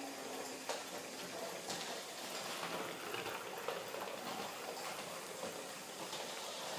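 Antique Carette stork-leg live-steam toy locomotive running around its track: a steady hiss and bubbling of steam, with a few light clicks.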